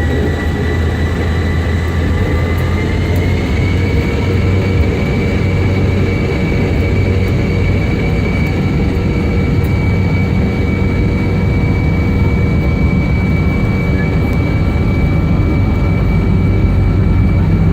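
Boeing 717's rear-mounted Rolls-Royce BR715 turbofan engines running, heard inside the cabin as a steady low rumble with a whine that rises slightly a few seconds in and then holds.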